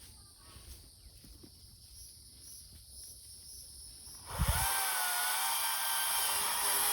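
Faint low rumble, then about four seconds in a two-stroke chainsaw starts up loud and runs steadily with a wavering engine note.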